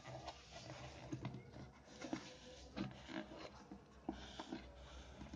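Light irregular scrapes and taps of a hand gripping and turning a cardboard box that holds a 4-inch speaker driver, over a faint steady low hum.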